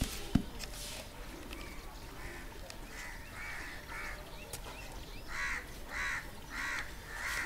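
A crow cawing repeatedly, short harsh caws about two a second, growing louder about five seconds in.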